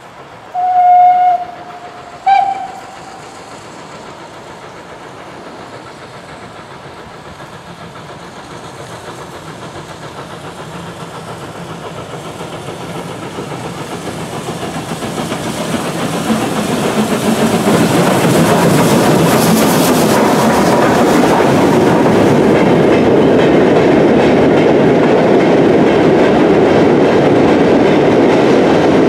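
Steam locomotive whistle sounds twice, a longer blast and then a short one. The train then grows steadily louder as it approaches and passes, ending in the loud, steady rumble and clickety-clack of loose-coupled mineral wagons rolling by.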